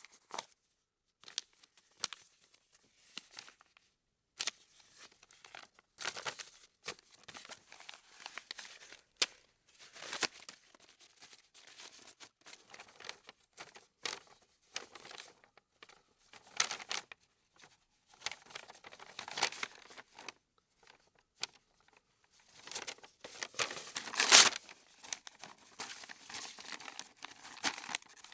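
Crinkling and tearing: irregular rustles and crackles of a material being crumpled and torn, with short pauses and the loudest crackle about 24 seconds in.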